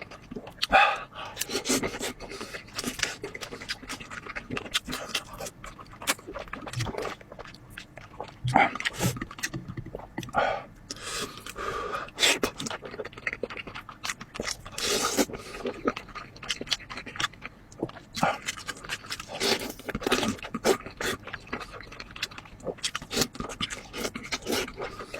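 A person eating close to the microphone: irregular wet chewing, smacking and slurping sounds with quick breaths, mixed with short clicks and scrapes.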